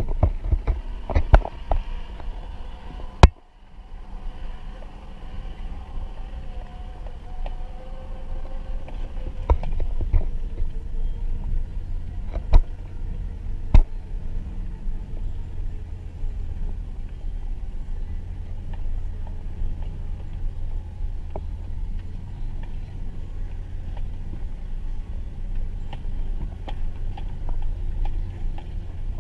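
2009 Hummer H3T Alpha's V8 running with a steady low rumble as the truck crawls over a rough dirt trail. Sharp knocks and clunks come several times: in the first second or so, about three seconds in, and twice around twelve to fourteen seconds in.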